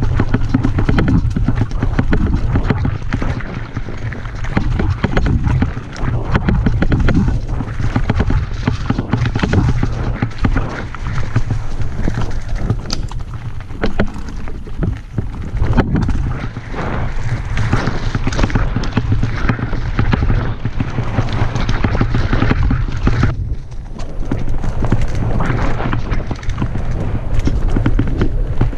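Mountain bike riding down a rough trail: tyres crunching over the ground and the bike clattering with many sharp knocks and rattles, over a steady low wind rumble on the microphone.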